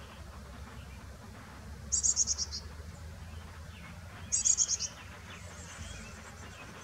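Carolina chickadee calls: two short bursts of rapid, high-pitched notes about two seconds apart, with a fainter high series after the second.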